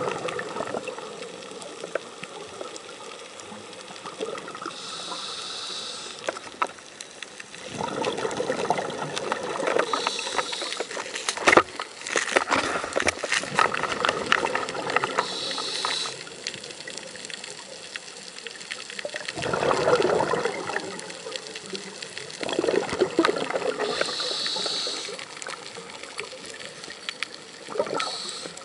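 Scuba diver breathing through a regulator underwater: a short hiss on each inhale, then a longer, louder rush of exhaled bubbles, repeating over several breaths.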